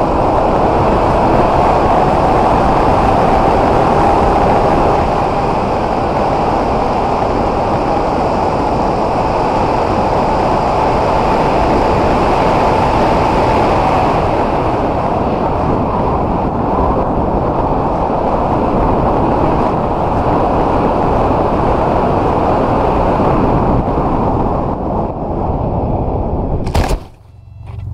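Onboard-camera sound of the S800 FPV flying wing in flight: steady wind rush over its electric motor and propeller, with a faint steady motor tone. Near the end a sharp knock as it comes down into a crop field, after which the rush cuts off.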